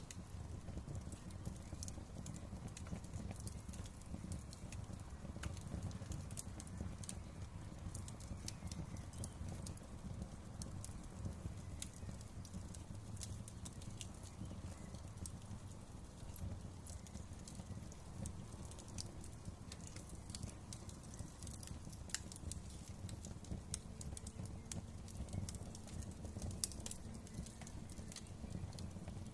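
Wood fire crackling, with frequent sharp irregular pops and snaps over a steady low rumble of burning.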